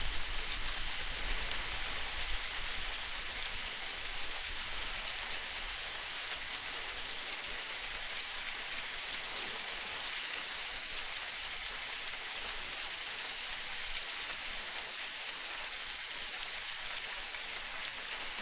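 Steady hiss of rain falling on a surface. A low rumble fades away over the first few seconds.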